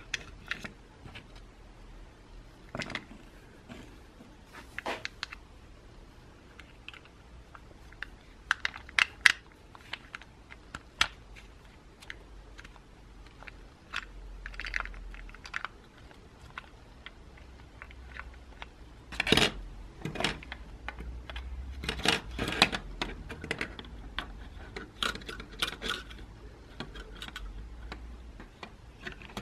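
Small clicks, taps and light clatter of metal parts and shafts being handled and fitted into the round black housing of a vintage kitchen mixer attachment during reassembly. The clicks come scattered and grow busier in the last third.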